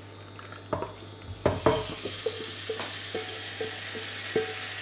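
Marinated chicken wings and their olive-oil marinade dropping from a steel bowl into a hot sauté pan: a few thuds, then sizzling that starts about a second and a half in. Over the sizzle, a silicone spatula scraping out the steel bowl gives a string of short squeaks.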